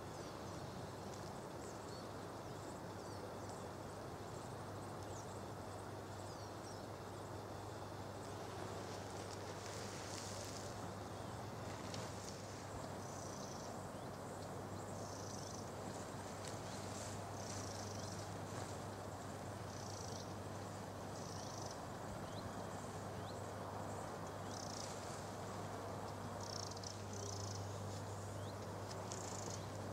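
Late-summer meadow ambience: insects chirping in short high-pitched bursts every second or two, over a steady low hum. The chirping starts about a third of the way in.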